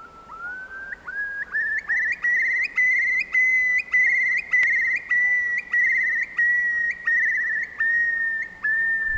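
Eurasian curlew's bubbling song: a long series of whistled notes, each opening with a quick upward slur, climbing in pitch over the first few seconds, warbling into a bubbling trill in the middle, then slowly sinking.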